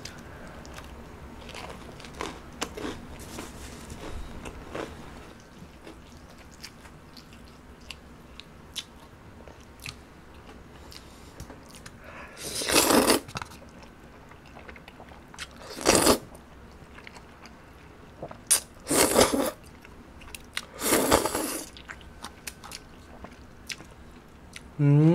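Close-up eating sounds: crunching and chewing of crisp oven-baked shrimp toast (menbosha) in the first few seconds, then four loud slurps of mul-jjajang noodles, the first about halfway through.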